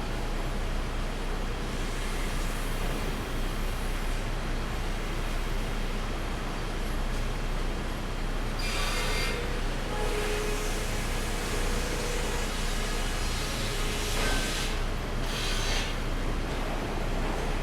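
Pallet sawmill machinery at the green chain running steadily, a constant mechanical din with a low hum under it. Two brief harsher bursts of noise stand out, about nine and fifteen seconds in.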